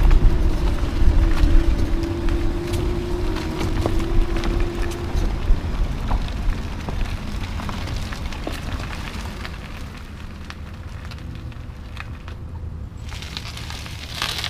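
Tyres of a 2009 Nissan Altima Hybrid rolling slowly over a gritty, leaf-strewn asphalt driveway, with small crackles from grit and leaves under the tread over a low rumble. A steady hum stops about five seconds in, and the rumble fades as the car slows to a stop.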